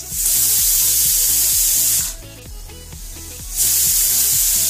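Aluminium pressure cooker whistling: steam blasts out of the weight valve as a loud, high hiss for about two seconds, stops, then starts again shortly before the end. These are whistles being counted toward three while black lentils and ash gourd cook under pressure.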